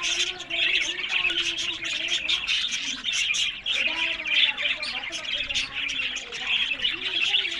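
Budgerigars chirping and chattering steadily, a dense warble with many short clicks throughout.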